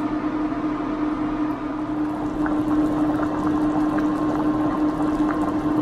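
A pot of chili soup simmering on an induction cooktop: small bubbling pops from about two seconds in, over a steady hum.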